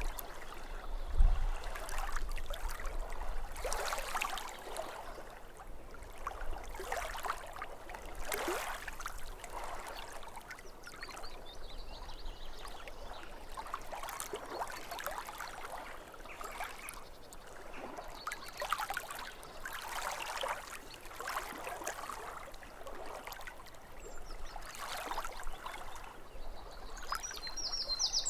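Small waves lapping at a lakeshore, a soft wash of water that swells and falls back every second or two. A low thump about a second in.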